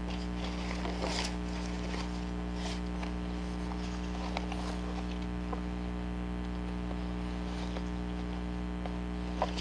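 Faint, scattered rustling and light taps of papers and craft supplies being shuffled through during a search, a little louder about a second in, with a short click near the end, over a steady low hum.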